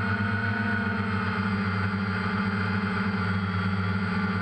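DJI Phantom quadcopter's electric motors and propellers humming steadily as it hovers, picked up by its onboard camera, the pitch wavering slightly.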